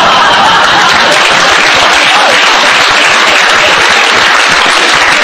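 An audience applauding loudly and steadily, in reaction to a line from the stage.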